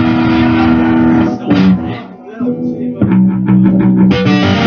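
Amplified electric guitar playing held chords, which drop away briefly about two seconds in, then come back with quick repeated strums and ringing chords.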